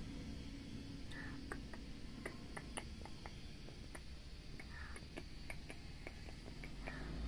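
Quiet street ambience with no traffic: a low steady rumble, with scattered faint clicks and a few short high chirps.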